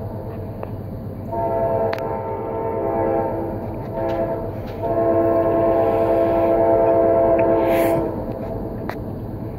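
Multi-note freight locomotive horn finishing the grade-crossing signal: a long blast trails off, a short toot follows, then a final loud long blast of about three seconds. Underneath runs the steady low rumble of the GE AC44 (AC4400CW) diesel locomotive working in a high throttle notch.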